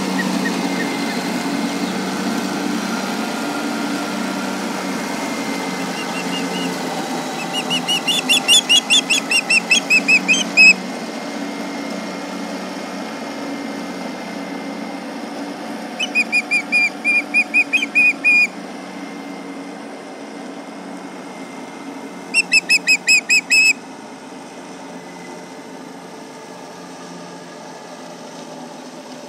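Ospreys giving three bouts of rapid, high-pitched chirping alarm calls, each lasting about one and a half to three seconds, directed at a tractor. Under them the tractor's engine drones steadily, fading gradually.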